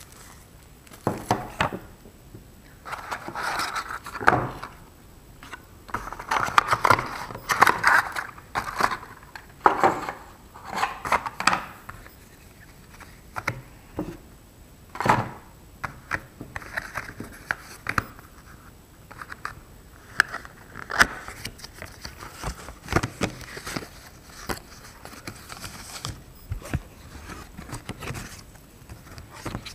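Cardboard box and paper packaging being handled on a wooden table: irregular rustling and scraping with short knocks and clicks as pieces are picked up and set down.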